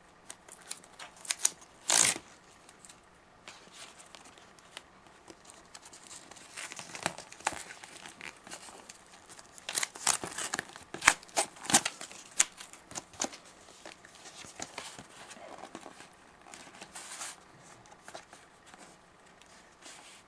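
Silver foil wrapper of a hockey card pack being torn open and crinkled by hand: irregular crackles and rips, loudest about two seconds in and again in a cluster around ten to twelve seconds.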